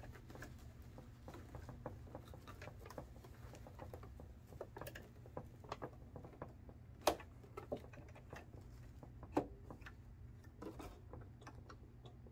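Singer Quantum computerized sewing machine stitching along a fabric edge: a faint steady hum with a patter of soft clicks, and a couple of sharper clicks about seven and nine seconds in.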